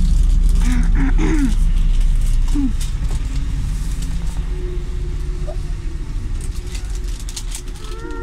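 City bus engine rumbling heavily as it is heard from inside the bus in moving traffic, loudest for the first couple of seconds and then easing off. A few brief squeaks come early on.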